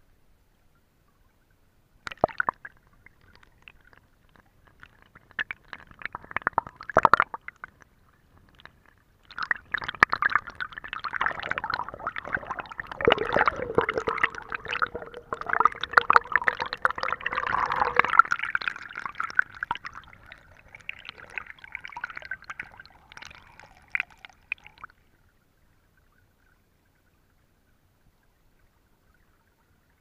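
Water of a shallow stream gurgling and splashing over rocks close to the microphone: a few short spurts at first, then a busy, crackly gurgling for about fifteen seconds that stops abruptly.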